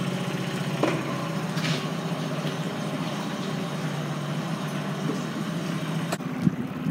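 Small outboard motor running steadily at low speed, a low even hum, with a couple of faint knocks near the end.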